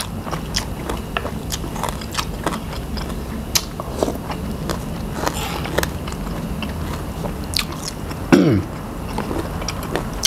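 Close-up chewing and crunching of a mouthful of spicy salad with crispy squid tentacles: many small, sharp crackles. About eight seconds in there is one short falling vocal sound from the eater.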